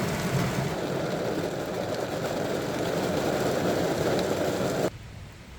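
Car engine idling, heard from inside the cabin as a steady rumble, cut off abruptly near the end.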